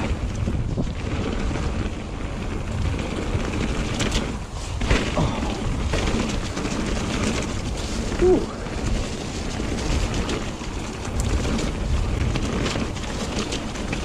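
Mountain bike descending a wet trail: wind buffeting the chest-mounted camera's microphone over the rumble of tyres and frame, with a few knocks from the bike over bumps. About eight seconds in there is a brief, louder squeak.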